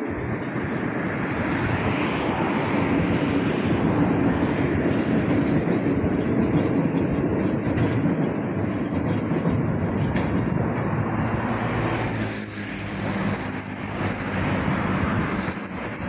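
Elevated MRT train running past on a concrete viaduct: a steady rolling rumble of steel wheels that swells over the first couple of seconds and holds. About twelve seconds in it gives way to road traffic with a low engine hum.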